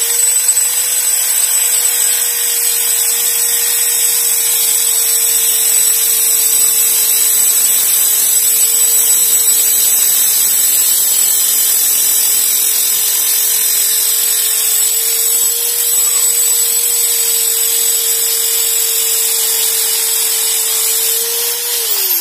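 Electric drill spinning a homemade abrasive cutting disc, made from a cut-down grinder cut-off wheel, against a metal EMT conduit tube. A steady motor whine runs under a loud, high grinding hiss as the disc cuts through the tube.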